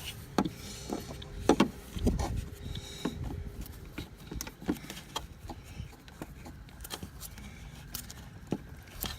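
Irregular clicks and knocks of hands fiddling with a removed plastic car alarm siren and its electrical connector, trying to unplug the connector.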